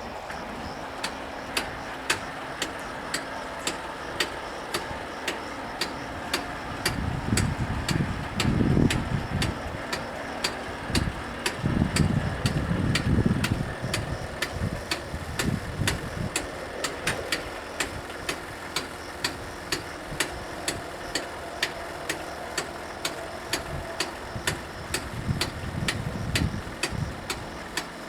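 Level crossing warning bell striking in a steady rhythm, about two strikes a second. A few low rumbles swell and fade underneath.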